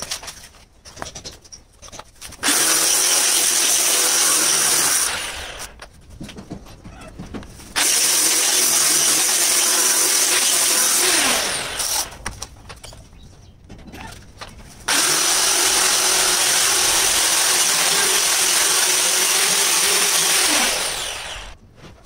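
Electric angle grinder running against a green marble slab in three runs of a few seconds each, the motor switched off in between; one run ends with the disc spinning down in a falling whine. Light knocks from handling the stone between runs.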